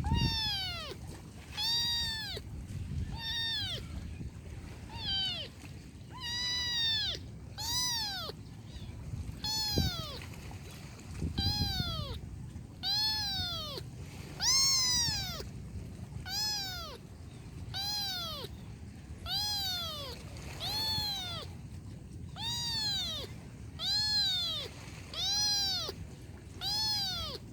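A kitten meowing over and over, about one high-pitched meow a second, each call rising and then falling in pitch, over a low background rumble.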